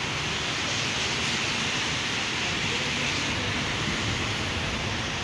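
Steady traffic noise from wet, flooded streets: an even rushing hiss with a low rumble underneath.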